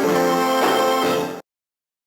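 Cartoon soundtrack music, held notes that cut off abruptly about a second and a half in, followed by silence.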